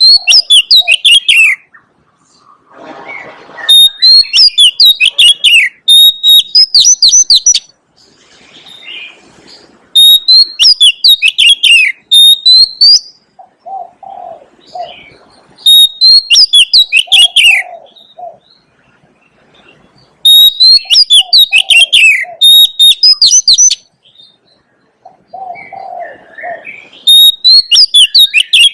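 Oriental magpie-robin singing loud, repeated phrases about every six seconds. Each phrase opens on a held high whistle and runs into a quick string of falling whistled notes. Fainter low cooing notes come between the phrases.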